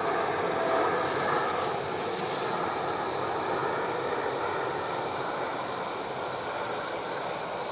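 Camping gas stove burner running with a steady rushing hiss under a large aluminium mess tin of rice that is boiling and giving off steam.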